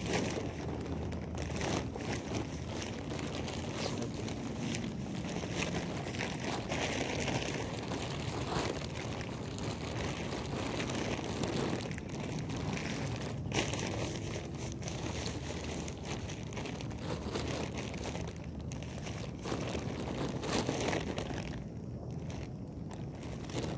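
Plastic bag crinkling and rustling with many small irregular crackles as it is handled and bunched up.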